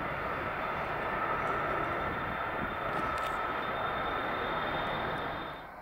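Airbus A300-600 freighter's twin jet engines running at takeoff power: a steady rushing noise with a high, even fan whine. It drops away abruptly just before the end.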